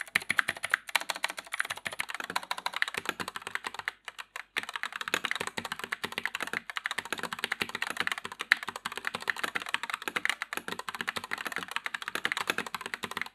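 Typing test on a Gamakay LK67 mechanical keyboard: fast, continuous keystroke clicks, with a short pause about four seconds in.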